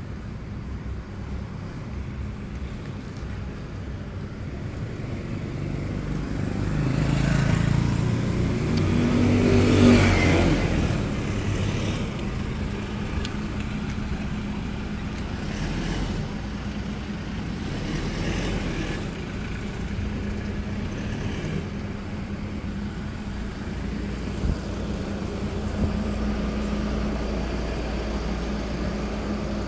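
Street traffic with a steady low engine hum. A motor vehicle passes close about a third of the way through, its sound swelling to a peak and then fading.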